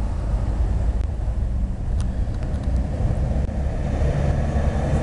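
Motorcycle engines running at low revs in a steady low rumble that grows a little fuller near the end.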